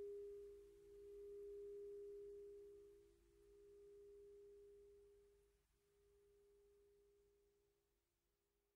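Crystal singing bowl ringing out on one pure, steady tone that swells and sinks in slow pulses about every two and a half seconds while fading away.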